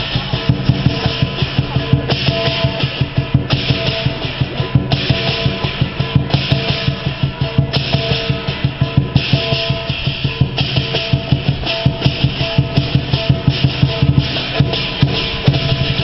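Chinese lion-dance drum beaten in a fast, steady rhythm, with cymbals clashing in long stretches over it.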